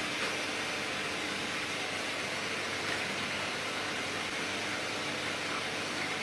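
Steady, even hiss with a faint underlying hum from the running machinery of a waste engine oil distillation plant.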